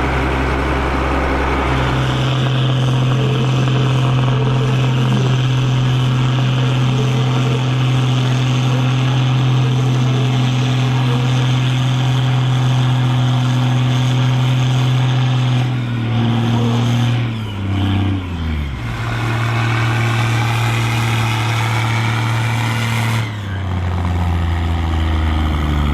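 Case IH 1455 XL tractor's six-cylinder diesel engine running hard. Its pitch climbs about two seconds in and holds steady, then falls away and dips low for a couple of seconds about two-thirds of the way through, picks up again, and drops once more near the end.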